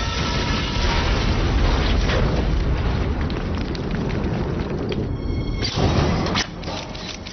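Cartoon sound effect of a long, loud rumbling crash, with a sharp hit about six seconds in, mixed with background music.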